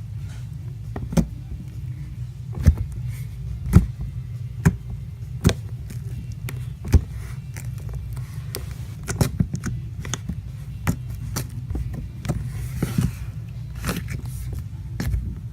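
Foam slime being squeezed and poked by hand, giving irregular sharp pops and clicks, over a steady low hum.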